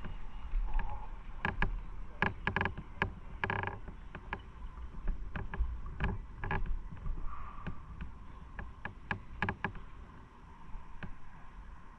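Small waves lapping and sloshing among concrete tetrapod breakwater blocks, in irregular slaps and gurgles, over a low wind rumble on the microphone.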